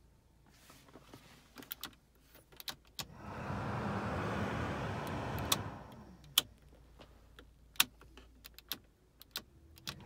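Clicks of the heater fan-speed knob being turned, then the heater blower fan comes on about three seconds in with a steady rush of air, cuts out about three seconds later and spins down with a falling tone, and more knob clicks follow before the fan starts again at the very end. The blower's resistor unit has failed, so only the higher fan speeds work.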